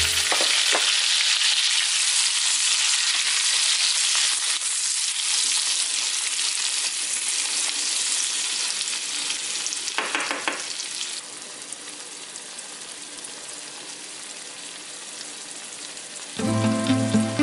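Cherry tomatoes and onion sizzling in oil in a small frying pan, stirred with a wooden spatula. The sizzle fades gradually and drops quieter about eleven seconds in.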